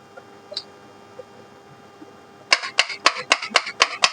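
Faint steady hum, then about two and a half seconds in a fast run of sharp knocks, several a second, as a ceiling fan's stator core is struck by hand to loosen and lift out the slot insulation papers.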